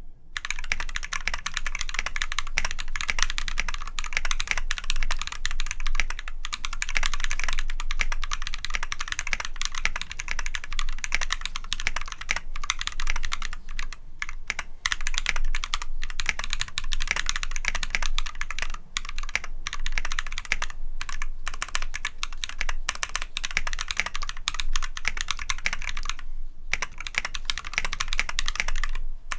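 Typing on a custom Tofu65 full-metal-case mechanical keyboard with lubed, filmed Glorious Panda tactile switches and cherry-profile PBT keycaps. The keystrokes run fast and continuous, with a short pause near the end.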